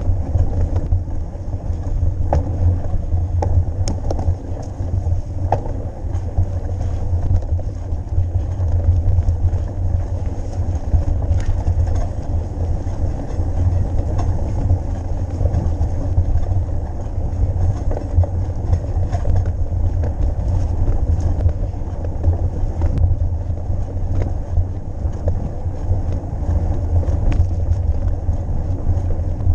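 Wind buffeting the microphone of a camera carried on a moving mountain bike, a steady low rumble, with scattered light clicks and rattles from the bike over rough ground.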